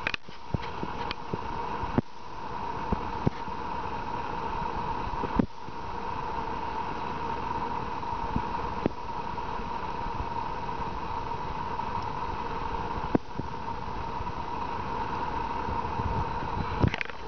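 Steady background hiss with a constant hum in it, broken every few seconds by sharp clicks from a pocket lighter being struck and dry leaves and pine needles being handled as they are set alight.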